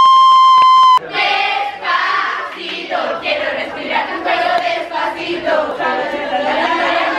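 A loud high note from the stage dance music, held steady and cut off abruptly about a second in. Then a group of girls' voices singing and calling out together, loud and overlapping.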